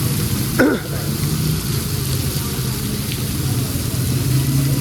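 Heavy rain hissing steadily, over the low hum of idling vehicle engines. About half a second in, a short loud sound drops quickly in pitch.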